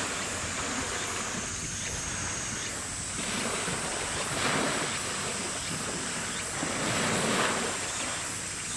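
Wind buffeting the microphone over the wash of harbour water, swelling in two stronger gusts about halfway through and near the end.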